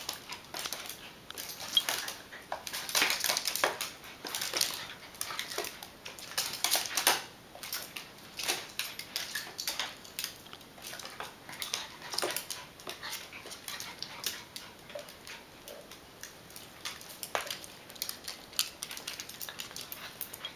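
Two Bolognese dogs playing rough-and-tumble. Their claws click and scrabble irregularly on a hardwood parquet floor, with the dogs' own vocal sounds now and then.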